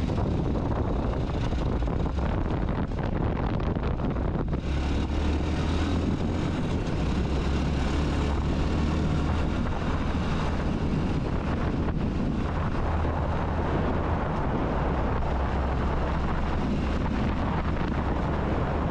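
Honda CT125 Hunter Cub's single-cylinder engine running steadily while being ridden, a low drone under heavy wind rush on the microphone. The drone grows a little stronger about four and a half seconds in.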